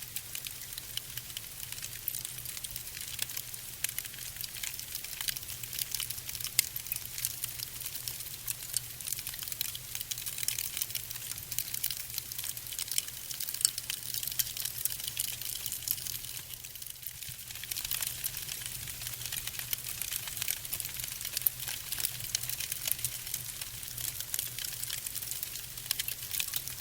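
Fire burning with a dense, irregular crackle of small pops and snaps, over a steady low hum.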